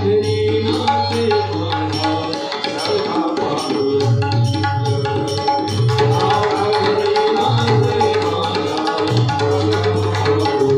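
Marathi abhang music: tabla and mridang drumming a steady rhythm under a sustained melodic accompaniment.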